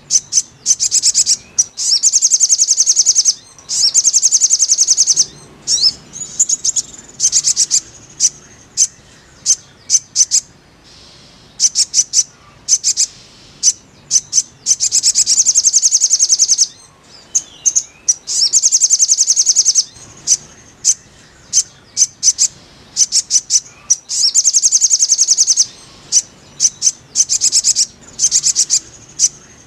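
Sogon (sogok ontong, a spiderhunter) song: fast trains of sharp, high chip notes run together into phrases of one to two seconds, repeated again and again with short breaks.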